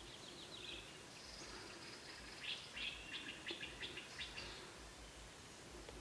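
Wild birds singing in a dawn chorus, faint: scattered chirps, with a run of quick short notes about halfway through.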